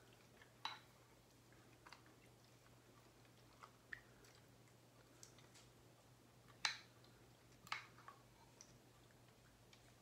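Faint sticky squelches and pops of freshly formed glue-and-borax slime being stirred and lifted with a spatula in a glass bowl, with some leftover water. About seven separate short wet clicks, the loudest about two-thirds of the way through.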